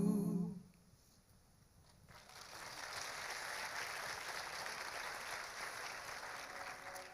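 The last sung note dies away in the first moment. After a short hush, the congregation applauds steadily for about five seconds.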